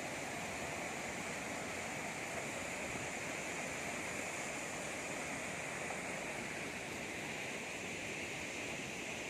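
Hudru Falls, the Subarnarekha River dropping about 98 m: a steady, unbroken rush of falling water.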